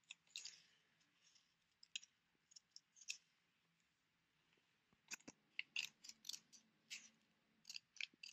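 Scissors snipping through several layers of folded green paper: a few scattered short snips, then a quicker run of them from about five seconds in.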